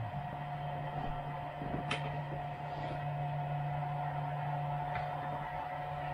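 3D printer's stepper motors running as the print head lays down the first-layer calibration pattern, a steady motor whine over the hum of the hotend fan, its low tone stepping up as the move changes right at the start, with a light tick about two seconds in.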